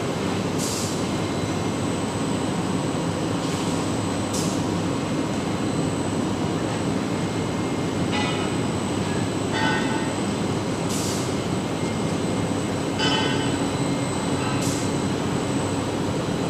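Zip lock bag film blowing machine running: a steady loud mechanical drone, with short high hisses every few seconds and a few brief rattles.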